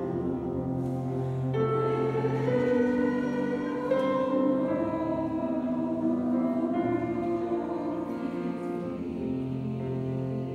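Choir singing slow, held chords that move to new notes every second or two, in a church.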